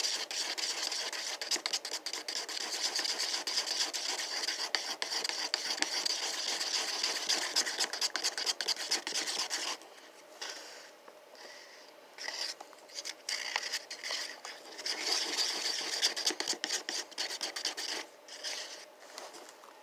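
Wooden stir stick scraping and rubbing around the inside of a small paper cup, stirring thick washable paint mixed with Floetrol. Steady stirring for about the first ten seconds, then quieter, broken strokes, and another spell of stirring later on.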